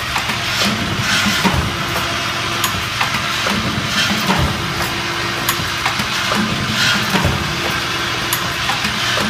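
Automatic wire bucket-handle forming machine running: a steady hum under repeated metallic clacks about once a second, with short hisses, as it works through its forming cycle.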